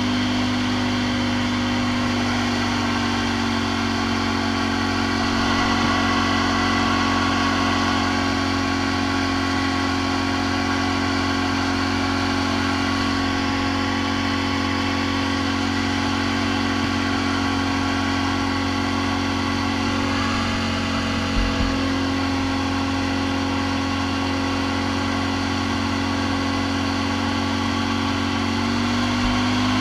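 Snorkelled ATV's engine idling steadily with the machine standing still. The idle settles slightly lower a couple of seconds in and lifts a little near the end, with two brief low knocks a little past two-thirds of the way through.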